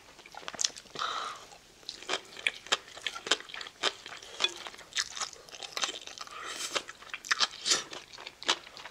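Close-miked eating sounds: a person biting and chewing food, with a run of sharp, irregular crunches.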